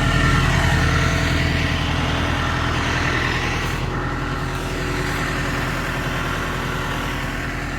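Self-propelled swather running steadily while cutting wheat, heard from inside the cab: an even engine drone with a hiss of machinery and air over it.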